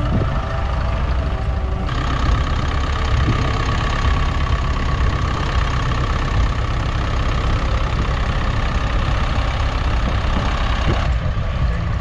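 Massey Ferguson tractor engine running steadily while pulling a mounted plough.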